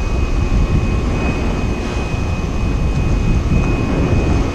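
Wind buffeting the microphone in a steady low rumble, over a constant engine drone with a thin high whine running through it.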